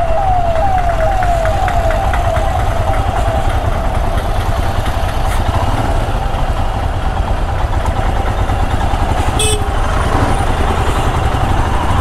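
Steady low rumble of slow, jammed city traffic and motorcycle engines. Over it, an electronic siren's rapid rising whoops, two or three a second, fade out over the first few seconds, and a short honk-like blast comes near the end.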